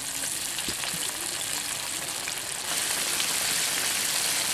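Large floured chicken pieces deep-frying in hot oil in a wok: a steady, dense sizzle at the start of frying on high heat. It grows louder a little past halfway as another floured piece goes into the oil.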